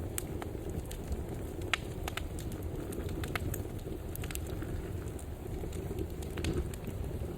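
Wood fire burning in a fireplace: a steady low rumble of flames with irregular sharp crackles and pops from the burning wood.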